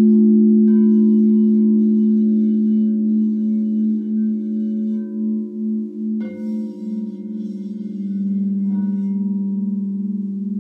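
Several crystal singing bowls ringing together in a sustained, slowly pulsing chord. Soft new strikes come about a second in, again around six seconds in, and near nine seconds; after the second strike a lower tone takes over.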